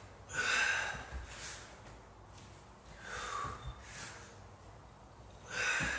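A person breathing hard mid-workout: about five forceful, breathy exhalations through the mouth, the loudest about half a second in, with a few faint thumps of hands and feet landing on an exercise mat.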